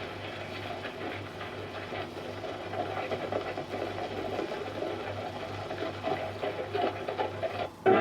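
Horses' hoofbeats, a fast, dense clatter, over a steady low hum on an old film soundtrack. It cuts off suddenly just before the end.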